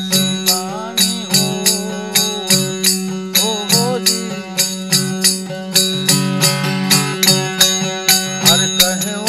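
Malwa folk bhajan instrumental passage: a steady tambura drone under an even jingling beat of kartal, about four strokes a second. A short melody line bends in pitch now and then over the top.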